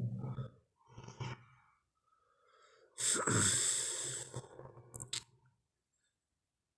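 Tyrannosaurus rex sound effect: two short breathy growls, then a loud harsh roar about three seconds in that drops in pitch at its start and lasts about two and a half seconds.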